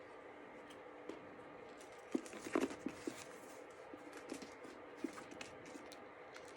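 Packing paper rustling and crinkling as it is pulled out of a new handbag, with scattered small clicks and taps; the handling is loudest about two to three seconds in.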